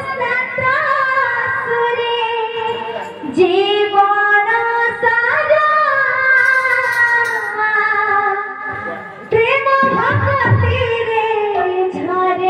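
A female voice sings an Odia kirtan devotional song through a microphone and PA, in long held, gliding notes.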